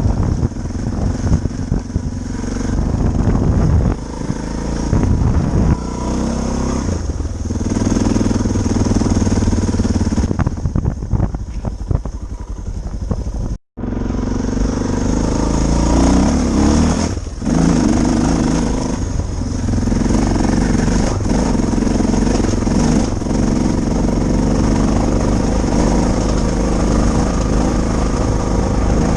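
Suzuki DR650 dual-sport motorcycle's single-cylinder engine running, its note rising and falling. It cuts out abruptly for a moment about halfway through, then carries on.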